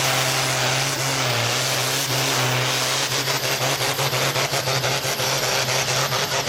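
Fendt-based diesel pulling tractor running flat out under load as it drags the weight sled down the track. About halfway through, its sound starts pulsing rapidly, about six times a second.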